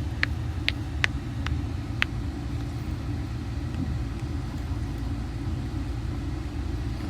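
Small silicone pop-it fidget keychain being pressed: five quick, sharp pops in the first two seconds, then none. Under it, the steady low rumble of a car cabin on the move.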